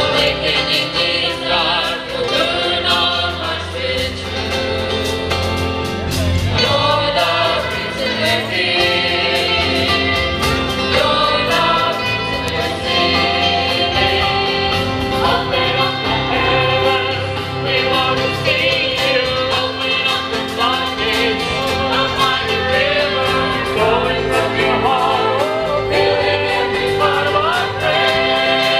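A church praise band performing a worship song: a group of singers on microphones singing together over acoustic guitars and keyboard, amplified through loudspeakers.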